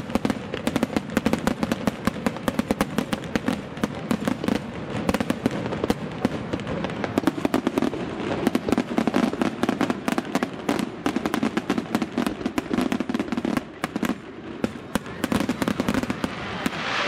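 Fireworks going off in quick succession: a dense, continuous crackle of many sharp pops and bangs, easing briefly about two-thirds of the way through before picking up again.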